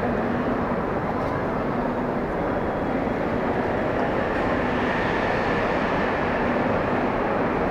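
Steady rumbling noise of a large airport terminal hall, heard while walking through it, with no single event standing out.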